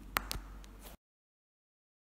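Two sharp clicks close together over a low steady hum, then two fainter ones. About a second in, the sound cuts off to dead silence.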